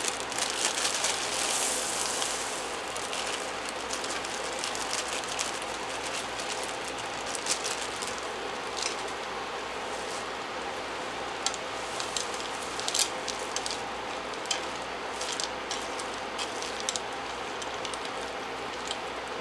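Vegetables sizzling in a hot pan, louder for the first couple of seconds as a bag of frozen sweet peas is poured in. Then a steady sizzle as they are stirred with a silicone spatula, with scattered scrapes and clicks against the pan.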